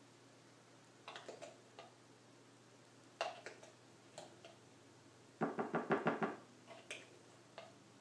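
Measuring spoon clicking and knocking against a cinnamon container and mixing bowl as a spice is measured out: a few scattered clicks, then a quick run of about eight taps just past halfway, as if knocking the spoon to shake the spice off.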